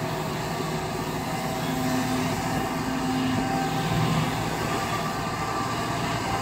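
Kobelco SK140 hydraulic excavator's diesel engine running steadily under load while it digs sand, with a stronger engine tone for a second or so about two seconds in.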